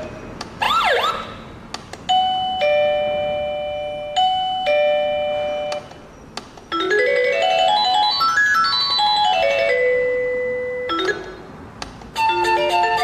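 Digital LED alarm clock's built-in buzzer playing its electronic ringtones one after another. First comes a brief siren-like warble, then a two-note doorbell-style chime heard twice, then a fast scale of beeps running up and back down. A new melody starts near the end.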